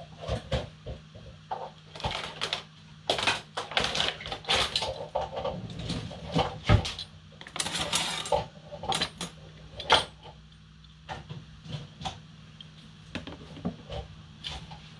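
Kitchen utensils and dishware clattering and knocking irregularly as they are handled, over a steady low hum.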